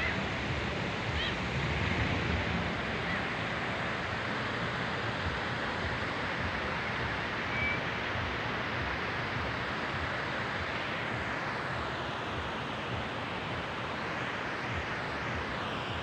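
Steady rushing outdoor noise of wind, with uneven low rumbling from wind on the microphone and a couple of faint short chirps.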